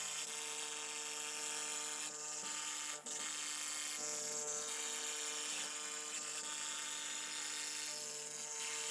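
CNC router spindle running with its O-flute bit cutting into a polycarbonate sheet: a steady motor whine under a hissing cutting noise that swells and eases every couple of seconds as the bit moves along the letters.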